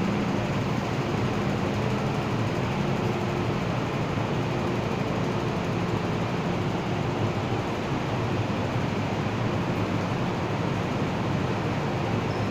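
Steady hum and hiss of an MTR M-Train standing at an underground station platform, its ventilation and auxiliary equipment running, with faint steady tones coming and going under the noise.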